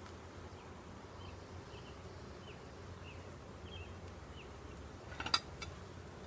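Honeybees humming steadily around an open hive, with a few faint short high chirps in the first few seconds. A cluster of sharp clicks comes a little after five seconds in.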